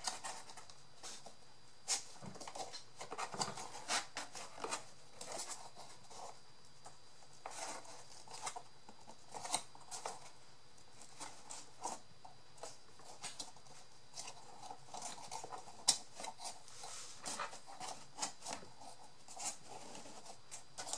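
Paper and cardboard craft pieces being handled: irregular rustles, light taps and clicks, one sharper click about 16 seconds in.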